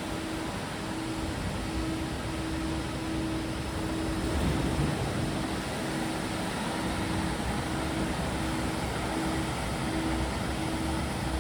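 Steady machinery noise with a short low hum that repeats about once or twice a second.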